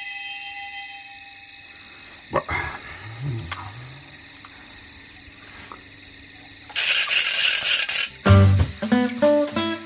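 A steady high-pitched chirring with fast faint ticking, with a single knock about two seconds in. About seven seconds in, a loud rushing noise lasts about a second, then plucked acoustic guitar music starts near the end.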